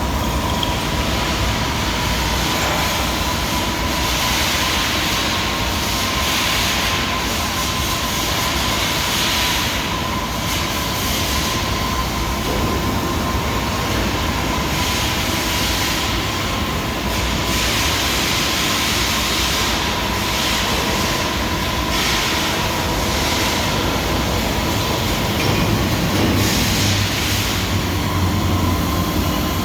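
ALIKO 400-ton hydraulic CNC press brake running, with a steady hum and a constant whine, and surges of hiss that recur every few seconds.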